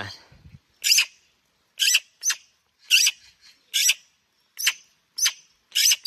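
Young magpies giving short, harsh begging calls, about eight in quick succession: hungry fledglings asking to be fed, still not full.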